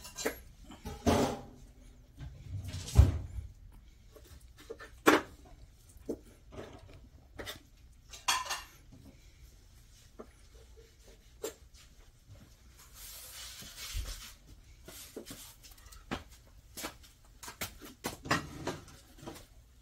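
A domestic cat chewing on fish scraps with the bones still attached, giving scattered wet clicks and short crunches.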